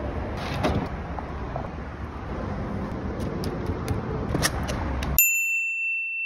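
A steady low traffic rumble with a few light clicks of tools being handled, then about five seconds in the background cuts out and a single clear bell-like ding rings on.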